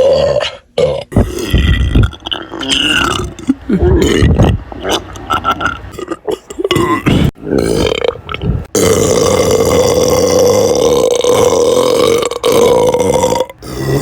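A woman belching: a string of short, separate burps, then one long belch held at a steady pitch for about five seconds near the end.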